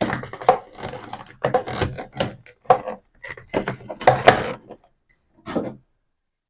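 Containers and fridge trays clattering and knocking as they are set back onto the shelves of the refrigerator: a quick string of knocks for nearly five seconds, one more a little later, then the clattering stops.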